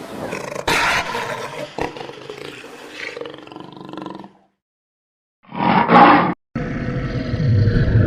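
Large animal calls in separate clips joined by abrupt cuts: one call about a second in, a short loud call about six seconds in, then another sound starting right after.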